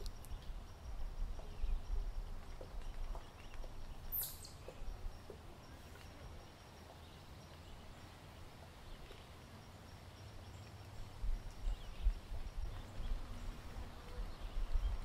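Outdoor woodland ambience: a low rumble that rises and falls, a faint steady high tone and a few faint chirps, with one sharp, high, falling whistle about four seconds in.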